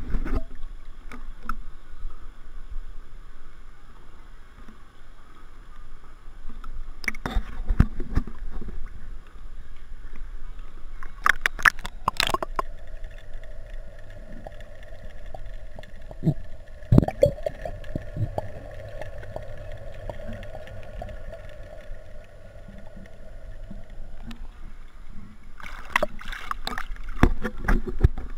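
Pool water sloshing and lapping against a camera held at the surface, with sharp splashes now and then; from roughly the middle of the clip the camera goes underwater and the sound turns muffled with a steady hum, before it comes back up with more splashing near the end.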